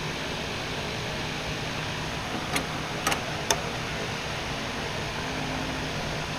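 Steady whirring fan-like background noise, with four sharp clicks about halfway through, two of them in quick succession.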